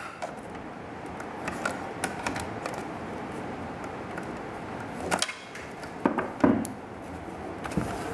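Flat-blade screwdriver prying at the plastic mirror housing to release the cap's top hook: scattered small clicks and plastic taps, with a few louder clicks about five to six and a half seconds in.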